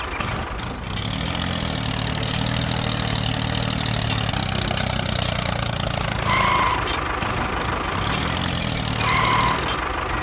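Tractor engine running at a steady idle, its pitch swelling briefly about a second in and again near the end. Two short beeps sound over it, about six seconds in and near the end.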